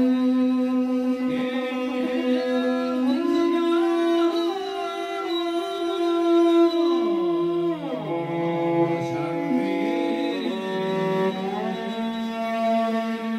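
Morin khuur (Mongolian horse-head fiddle) bowed solo, playing a slow long-song melody of long held notes. About halfway through the pitch slides down, and it climbs back up near the end.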